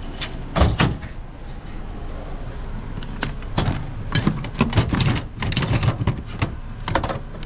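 A series of metal clunks and rattles from a locked truck toolbox being opened and a torque wrench taken out from among other tools. There is a single knock about half a second in, then a dense run of clatter through the middle.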